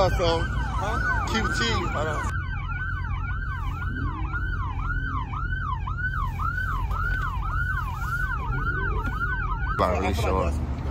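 Police car siren in fast yelp mode, sweeping rapidly up and down about two and a half times a second, over a low engine and traffic rumble. Voices overlap it for the first two seconds and again near the end.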